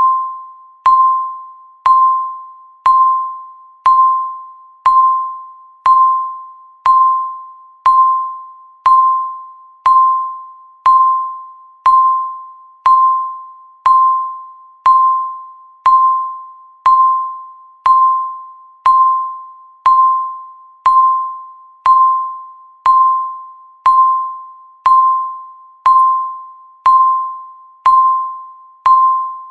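Countdown timer's tick sound: a single high, bell-like ping struck once a second, each one fading quickly, repeating evenly throughout.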